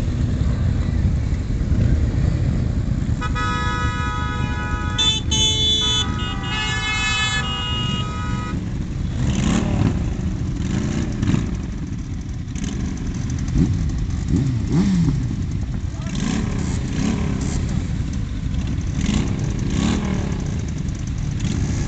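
Several motorcycle engines idling and rumbling together. A few seconds in, a vehicle horn honks several times over about four seconds, and later engines are blipped in short revs.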